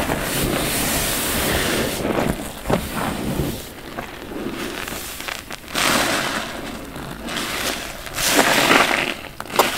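Wet bath sponges full of dish soap foam being squeezed by hand, giving a squelching, fizzing noise as water and suds pour out. It comes in several squeezes with short pauses between them.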